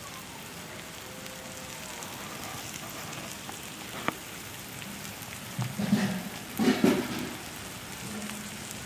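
Idli batter and onion-tomato masala sizzling steadily on a hot iron griddle (tawa), with a sharp click about four seconds in and two louder, low bursts of noise around six to seven seconds in.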